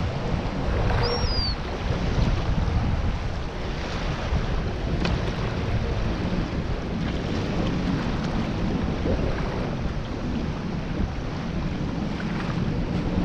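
Steady wind buffeting the microphone over small waves washing in the shallows. A short, high bird call sliding down in pitch sounds about a second in.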